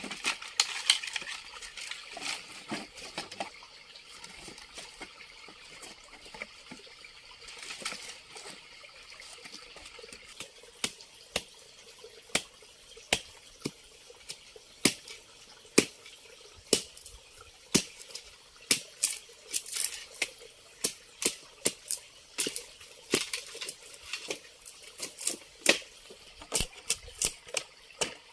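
Water running or trickling, then a long series of sharp knocks that come closer together toward the end, about two a second.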